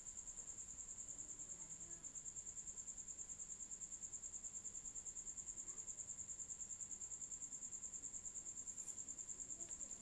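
Faint, steady high-pitched trill that pulses rapidly and evenly, typical of a cricket chirping.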